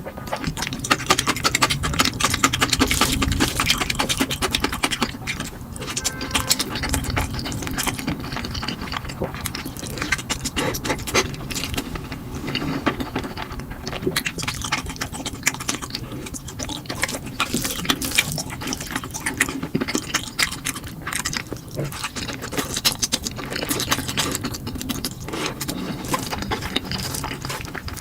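Close-miked eating of noodles: continuous wet chewing and slurping made up of many small, quick clicks and smacks.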